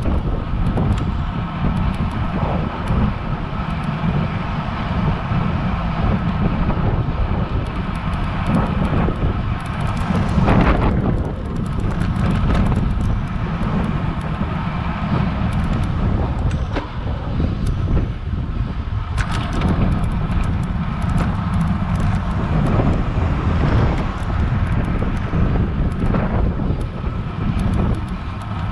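Steady wind rush and road rumble on a bike-mounted action camera's microphone as a road bike climbs, with a louder rushing swell about ten seconds in.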